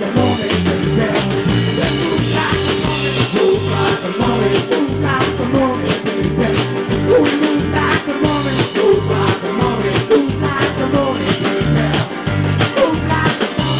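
Live band playing an instrumental stretch of a rock-and-roll song: a steady, rhythmic bass line with a long held note over it that fades out near the end.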